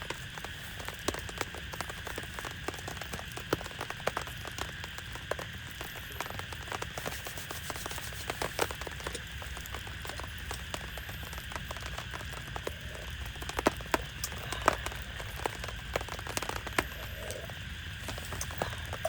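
Steady rain hiss with many individual drops tapping irregularly and sharply on a near surface, a few louder taps a little past the middle.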